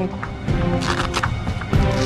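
Background music with sustained tones and low beats, with a brief hiss about a second in.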